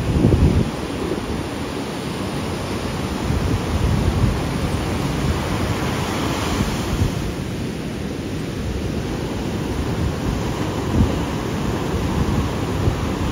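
Ocean surf breaking and washing up on a sand beach, with wind rumbling on the microphone. The hiss of a wave's wash swells about six seconds in.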